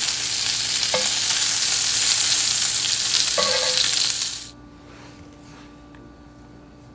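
Bacon sizzling as it fries on a stovetop griddle. The frying cuts off suddenly about four and a half seconds in, leaving quiet room tone.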